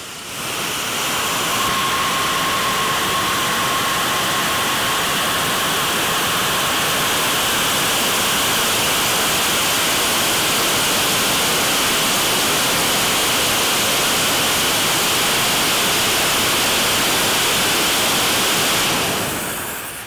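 Homemade jet engine built around a Dyson Supersonic hair dryer's compressor, running flat out at maximum power: a loud, steady rushing hiss that starts about half a second in and dies down near the end.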